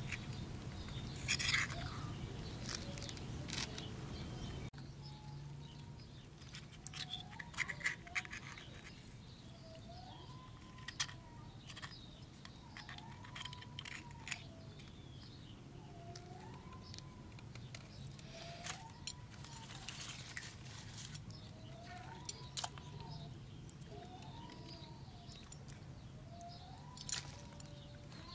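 Faint, high squeaky calls from an animal, each a short rise and fall in pitch, repeated about once a second. Scattered sharp clicks come between them. Before this, a louder stretch of noise cuts off suddenly about five seconds in.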